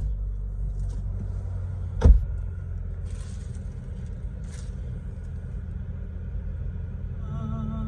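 Nissan X-Terra engine idling steadily, heard from inside the cabin, with a sharp thump about two seconds in. Near the end a wavering tone comes in.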